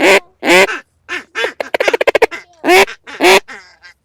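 Loud quacking from a duck call: a few drawn-out quacks, with a quick run of short clucks about two seconds in.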